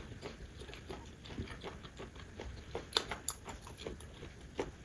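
Close-miked chewing: soft wet mouth clicks and smacks, with a couple of sharper ticks about three seconds in and near the end.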